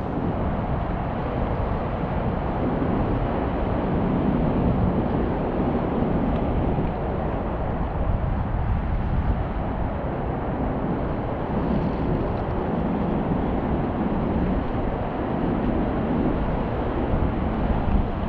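Steady wind noise on the microphone, a low rumbling hiss that swells and eases in gusts.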